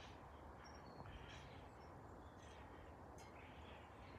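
Near silence: faint scattered bird chirps over a low, steady rumble.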